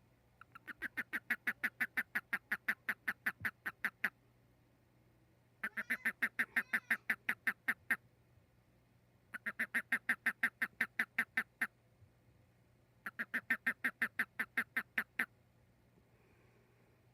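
Frog calling in four bouts of rapid, evenly spaced pulsed croaks, about eight pulses a second, each bout lasting two to four seconds with short pauses between.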